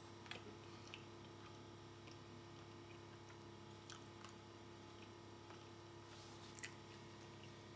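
Near silence: room tone with a low steady hum and a few faint, soft clicks scattered through it.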